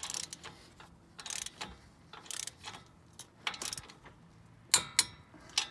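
Ratcheting torque wrench with a 19 mm socket tightening a suspension nut in several short runs of rapid ticks, then three sharp clicks near the end as the wrench reaches its set 61 foot-pounds.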